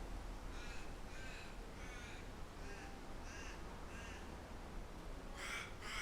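A bird calling in a series of short repeated calls, roughly two a second: a fainter run of about six calls, then a louder run starting near the end. A steady low rumble of wind lies underneath.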